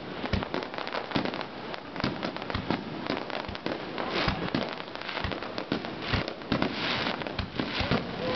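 Fireworks display: aerial shells bursting in a rapid, irregular string of bangs, overlapping with crackling from the bursting stars.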